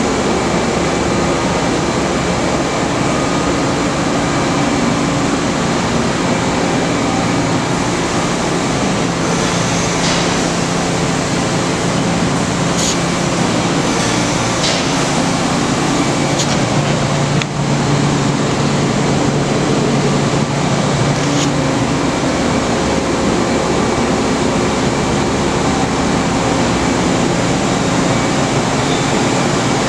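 Steady machine-shop noise: a continuous rushing hum with low droning tones, and a few faint ticks partway through.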